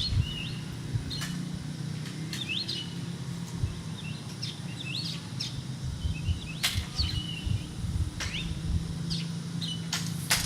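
Birds chirping in a forest: short chirps, many sweeping quickly upward, repeated every second or so over a steady low hum, with a few sharp clicks scattered through.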